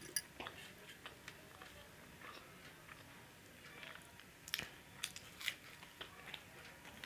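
Close-up biting and chewing of a samosa: sharp mouth clicks scattered throughout, with a loud one right at the start and a cluster of louder ones about four and a half to five and a half seconds in.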